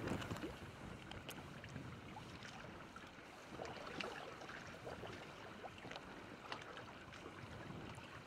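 Choppy lake water lapping against a fishing boat's hull: a steady, faint wash with scattered small slaps.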